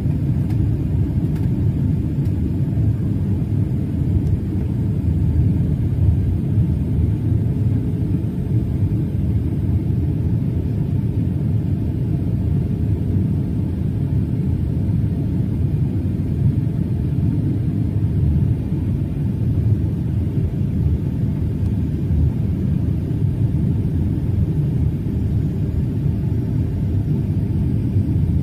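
Steady low rumble inside the cabin of a Boeing 737-800, the noise of its CFM56 engines and the aircraft in motion heard from a passenger seat.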